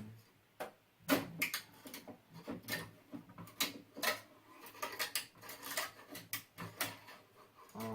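Irregular clicks and light knocks, two or three a second, as small hard objects are handled.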